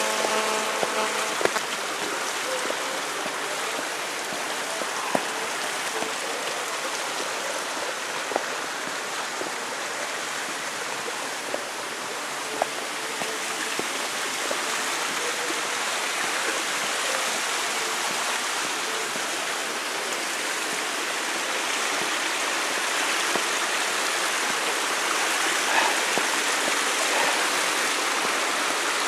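Mountain stream rushing beside a forest path, a steady wash of water noise, with a few sharp clicks scattered through it.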